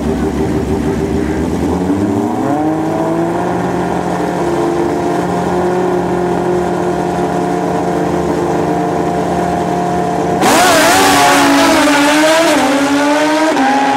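Two drag-racing motorcycle engines on the start line, revs rising about two seconds in and then held steady. About ten and a half seconds in they launch at full throttle and get much louder, the pitch climbing and dropping several times as they pull away through the gears.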